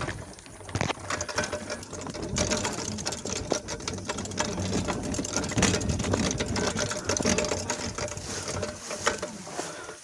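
Mountain bike rear freehub ticking rapidly as the bike is pushed along by hand, mixed with tyres and footsteps crunching on loose stones. The ticking thickens about two seconds in and eases off near the end.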